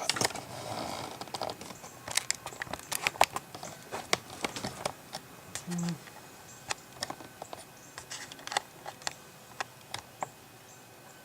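A Crosman Marlin lever-action BB air rifle being handled: many quick, irregular small clicks and rattles, with the loudest around three seconds in.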